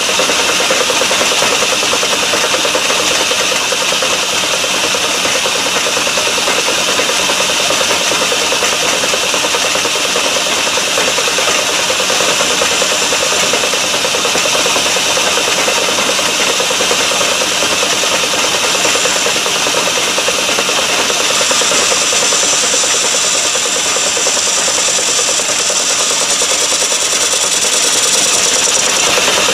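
Metal lathe running steadily while a small boring bar cuts inside a hole in the cylinder blank, squaring and flattening the hole's bottom. A higher-pitched cutting sound joins about two-thirds of the way through and stops shortly before the end.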